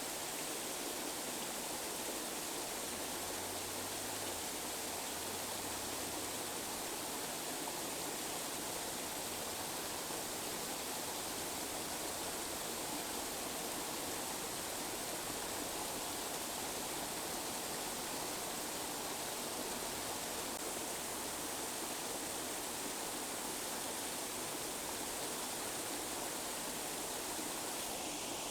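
Steady, unchanging hiss of tinnitus masking noise, even from mid to very high pitches, with almost no low end and no breaks.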